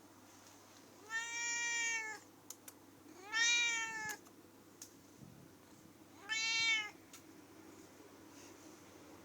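Domestic cat meowing three times, each meow rising and then falling in pitch; the second meow is the loudest.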